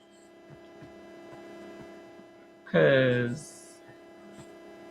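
Steady low electrical hum with several fixed tones, broken about three seconds in by one short spoken word.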